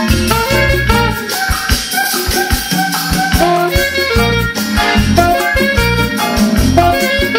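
Saxophone playing a melody of held and moving notes over an accompaniment of bass and percussion with a steady beat.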